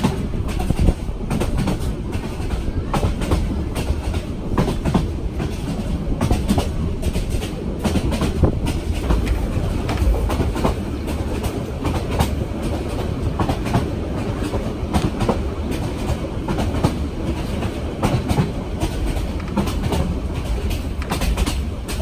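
Passenger train running along the line: a steady low rumble with many irregular clicks and knocks from the wheels over the rails, a rough ride on track that is in poor condition.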